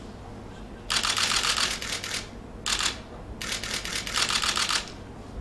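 Camera shutters firing in rapid continuous bursts: a run of fast clicks about a second in, a short run near three seconds, and another longer run around four seconds.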